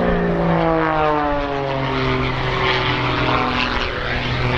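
Piston engine and propeller of the Muscle Biplane, a Pitts S-2S aerobatic biplane, at full power in a vertical climb. The drone falls in pitch as it climbs away, dropping a step about a second and a half in and then holding lower.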